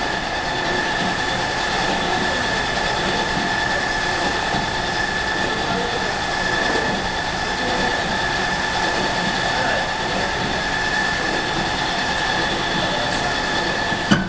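Belt conveyor with a hydraulic boom running steadily as bags ride along it: an even mechanical running noise with a steady high whine from the drive and rollers. One sharp knock near the end.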